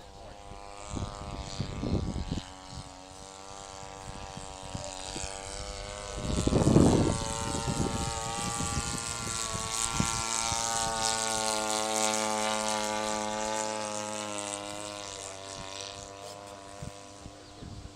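Radio-controlled model airplane engine running as the plane flies past, growing louder and then fading as its pitch drops. Gusts of wind buffet the microphone, the loudest about seven seconds in.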